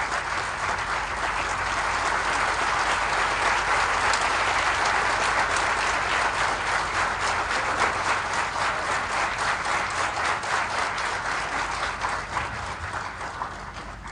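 Audience applauding, a steady mass of clapping that fades out over the last couple of seconds.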